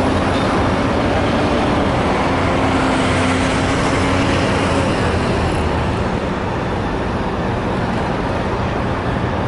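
Steady city traffic noise with the low hum of a running engine; the hum's upper tone fades about halfway through.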